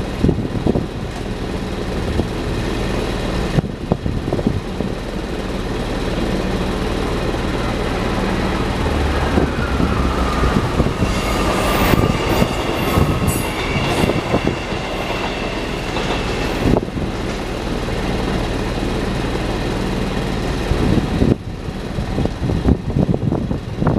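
A train passing over a level crossing: a steady heavy rumble with wheels knocking over the rail joints, and a brief high wheel squeal about halfway through.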